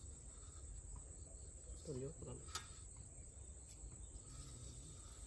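Faint, steady high-pitched chirring of insects, over a low rumble. A short murmur of a voice comes about two seconds in, with a light click just after it.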